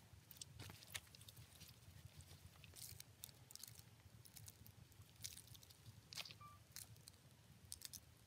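Near silence: faint handling sounds of a boiled pork leg being turned and rubbed with seasoning on leaves in a woven tray, small scattered clicks and crackles over a low background hum.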